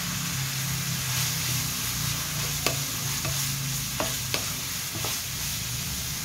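Shredded beetroot and chopped onion sizzling in a hot pan while a wooden spatula stirs them, with a few sharp knocks of the spatula against the pan in the second half.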